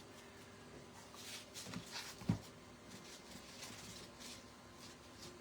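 Faint scraping and rubbing strokes on wood as the piece is distressed, with a single light knock a little after two seconds in. A faint steady hum runs underneath.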